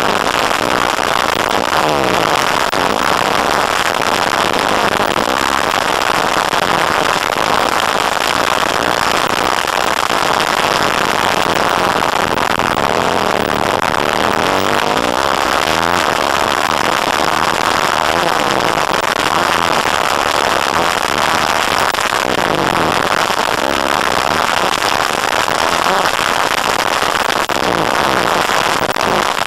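Engine of an off-road vehicle lapping a dirt track, revving up and down over and over as it accelerates and backs off, heard close from an onboard camera. A constant loud crackling noise from wind and vibration on the microphone runs over it.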